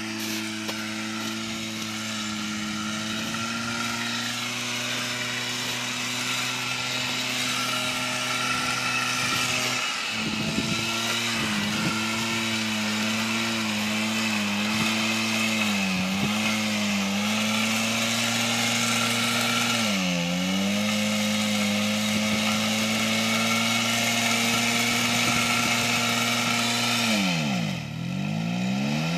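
Minsk 3115 motorcycle's 125 cc two-stroke single-cylinder engine held at high, steady revs while the rear wheel spins in the snow. The pitch dips briefly twice, then drops sharply near the end and climbs straight back up.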